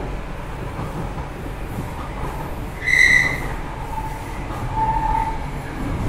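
Metro train running, heard from inside the carriage: a steady low rumble. About three seconds in comes a brief, loud, high-pitched squeal, typical of wheels squealing, followed by a fainter, lower squeal around four to five seconds in.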